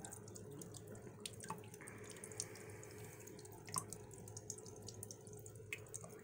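Faint water splashing and dripping as a thin stream from a partly restricted bottle outlet turns a small popsicle-stick water wheel and sprays into a plastic tub, with scattered drip ticks.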